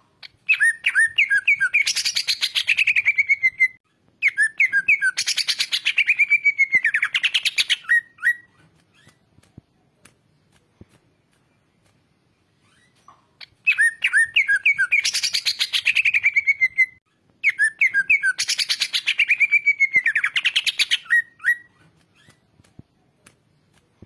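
Cucak ijo (green leafbird) singing. It gives four phrases in two pairs with a pause of about five seconds between them. Each phrase opens with a few clear notes and runs into a fast, dense trill that slides down in pitch.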